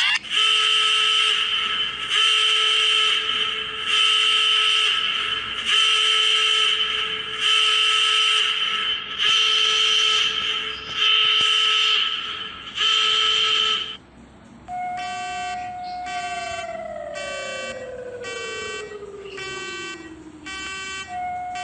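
Emergency alert alarm tones: eight horn-like electronic blasts of about a second each, evenly repeated. About two-thirds of the way in they give way to a quicker pulsing beep, with a tone under it that slowly falls in pitch like a siren winding down and then starts again near the end.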